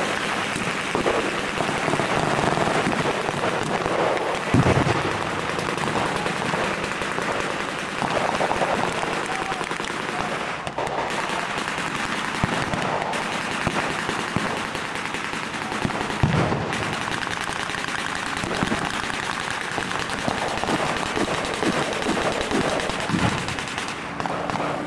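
Blank-firing rifles and machine guns in a sustained exchange: a dense, continuous crackle of overlapping shots and bursts, with a couple of heavier bangs standing out, one about four seconds in and another about sixteen seconds in.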